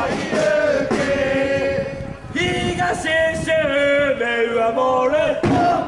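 Football supporters singing a chant together: many male voices holding long notes that step down in pitch, with a short break about two seconds in.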